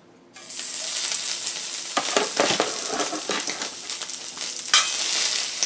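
Strips of seared flank steak dropped into an oiled cast-iron skillet heated to 450 degrees, sizzling loudly from about half a second in and carrying on steadily. Scattered clinks of a serving utensil against the pan, one sharper near the end.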